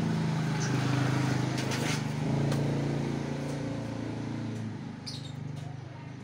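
A motor engine running at low revs in the background, its pitch shifting in steps and fading after about four and a half seconds. It is joined by a few short scratchy rustles as loose coconut fibre is stirred by hand in a metal tray.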